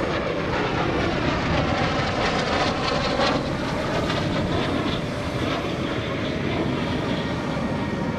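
L-39C Albatross jet trainer's AI-25TL turbofan running at flying power as the jet passes overhead during aerobatics: a steady jet roar with a whine that slides down in pitch over the first few seconds.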